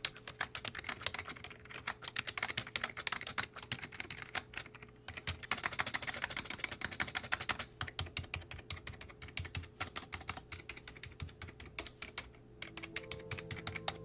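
Typing on a Razer Ornata V3 X, a low-profile membrane keyboard with rubber-dome switches: a fast, dense stream of key clicks with a couple of short pauses, busiest about six seconds in.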